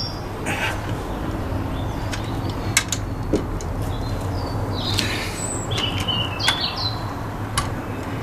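Birds chirping in short, pitch-jumping calls over a steady low rumble, with a few sharp clicks.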